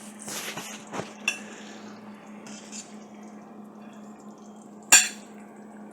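A few clinks of a serving utensil against dishes, the loudest a single sharp clink about five seconds in, over a steady low hum.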